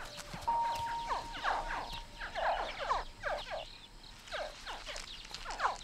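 Nile crocodile hatchlings calling: many short, high yelping chirps, several overlapping, a few each second.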